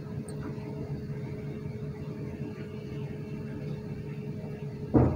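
Steady low background hum with a faint steady tone, and a brief loud sound just before the end.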